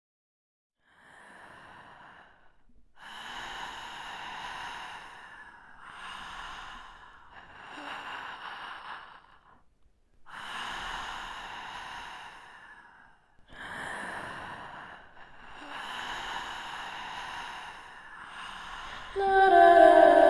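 A person breathing heavily and slowly, a run of long, hoarse, sighing breaths one after another with short pauses between. Near the end, a loud sustained chord of music comes in over it.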